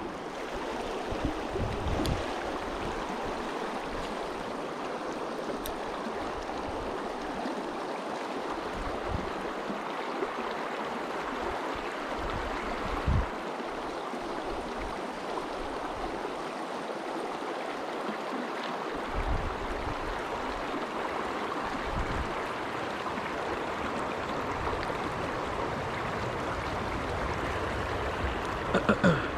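Shallow river water running in a steady rush, with a few brief soft low thumps.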